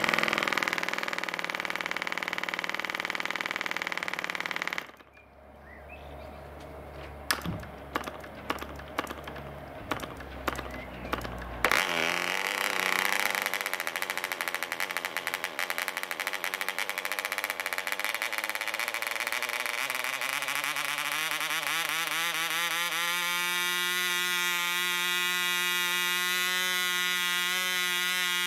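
1cc ME Heron model diesel engine running on a test stand; it cuts out about five seconds in, a series of clicks follows, and it fires up again a little before halfway. Its revs then climb steadily to a high, even buzz, typical of a freshly rebuilt engine whose needle valve and compression are still being dialed in.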